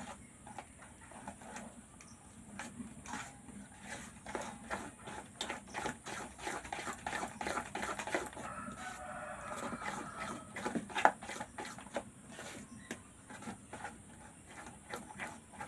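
A metal spoon scraping and clinking against a steel bowl as batter is stirred, in quick irregular strokes.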